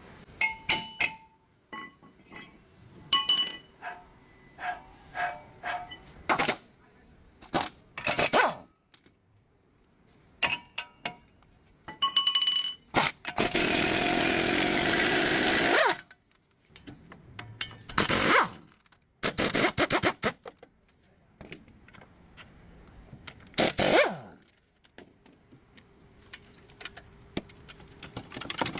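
Hand and power tools on a car's front wheel hub during a wheel bearing replacement. Metal clinks, knocks and ringing strikes come at intervals, and a power tool runs steadily for about three seconds near the middle.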